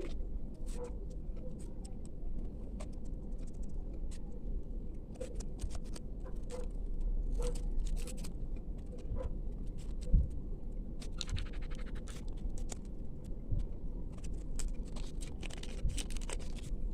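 Hands handling and opening small packaging: scattered clicks, taps and scratches, with a quick run of fine clicks about eleven seconds in, over a low steady rumble.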